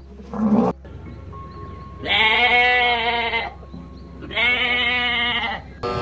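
A short, loud rush of noise about half a second in, then sheep bleating: two long, wavering bleats about two seconds apart. A cow's moo begins right at the end.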